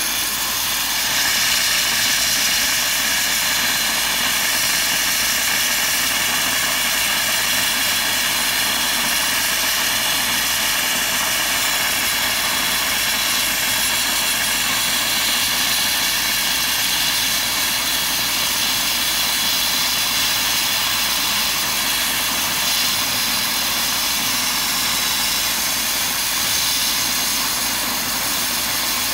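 Dry ice blasting gun's flat nozzle firing dry ice pellets in compressed air against a tyre, a loud, steady hiss that blasts the caked-on crust off the rubber. It gets a little louder about a second in.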